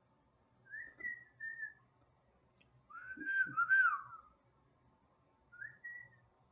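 Moluccan cockatoo whistling: three short whistled phrases that glide up and down in pitch, the middle one longest and loudest.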